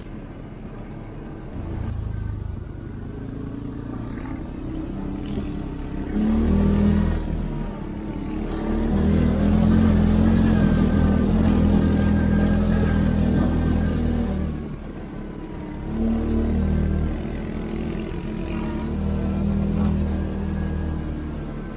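CF-Moto 450 ATV engine running under changing throttle. It surges louder several times, and the longest, loudest pull lasts about five seconds in the middle.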